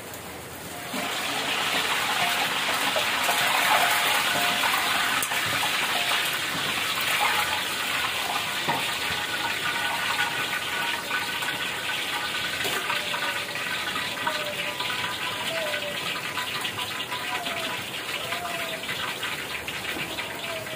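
Krupuk crackers sizzling loudly in hot frying oil in a wok, the hiss starting abruptly about a second in and slowly dying down.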